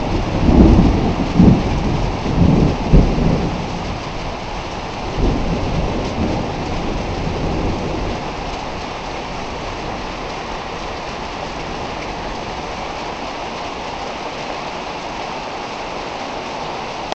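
Heavy rain pouring down steadily, with thunder rumbling loudly over the first three seconds and a weaker rumble about five to eight seconds in.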